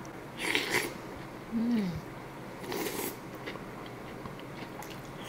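Close, soft eating sounds of a person taking in a mouthful of soft steamed rice rolls: two short breathy slurping noises, with a brief low 'mmm' of enjoyment falling in pitch between them.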